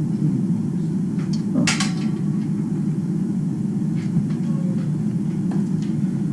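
Steady low rumble with a few light clicks and knocks over it, one sharper click a little under two seconds in.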